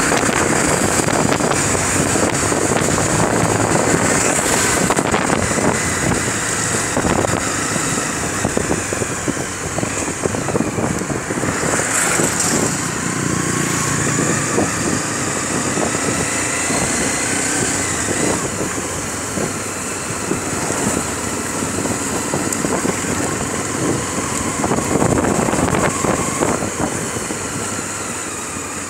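Motorcycle engine running as the bike rides through slow city traffic, its pitch drifting with speed, mixed with road and wind noise, picked up by a phone mounted on the handlebars.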